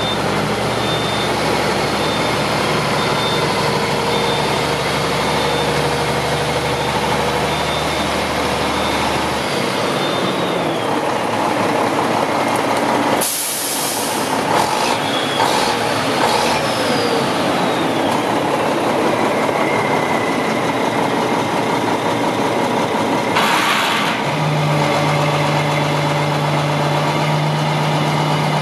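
Diesel engine of a 1995 Mack RD688S tri-axle dump truck idling steadily, with two short bursts of air hiss from the truck's air system, about halfway through and again later; the engine's low note shifts near the end.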